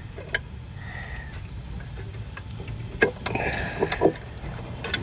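A few sharp clicks and knocks of hand tools and metal parts being worked on in a car's engine bay, with a short stretch of scraping and handling about three seconds in, over a steady low hum.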